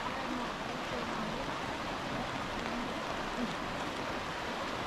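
Steady rush of a fast, shallow mountain river over stones and riffles, mixed with falling rain.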